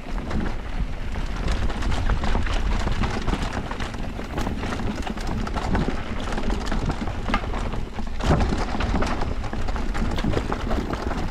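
Electric mountain bike riding down a rough bike-park trail: a steady low rumble of tyres over dirt and rock, with many sharp knocks and rattles from the bike.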